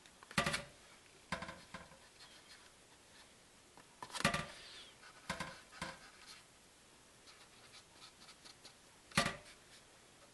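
Handling noises from a pencil and fingers working over wet peat pellets in a plastic seed tray: about half a dozen short scratches and knocks, the sharpest about half a second and nine seconds in, with faint ticks between.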